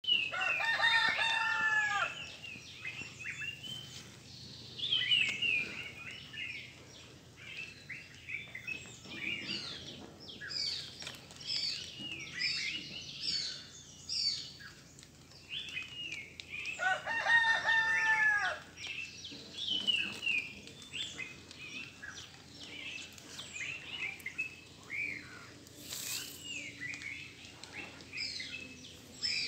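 A rooster crowing twice, each crow about two seconds long, the second a little past halfway through. Small birds chirp and call throughout.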